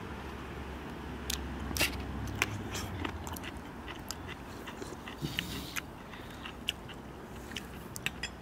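People eating soup with bread and pickled cucumbers: chewing and biting, with sharp clicks of metal spoons against ceramic bowls scattered throughout.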